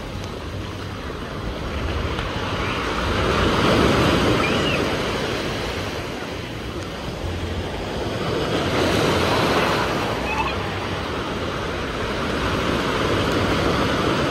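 Ocean surf breaking and washing through the shallows, a steady rushing wash that swells loudest about four seconds in and again around nine to ten seconds.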